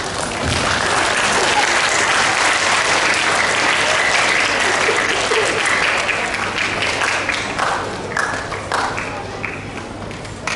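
Audience applauding: the clapping swells within the first second, holds steady for several seconds, then thins out to scattered claps after about seven seconds.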